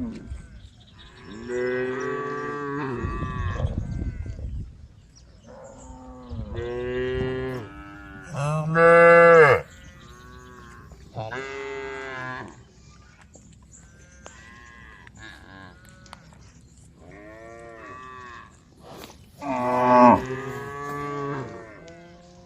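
A herd of cows mooing, about seven long calls one after another from several animals, the loudest near the middle and near the end.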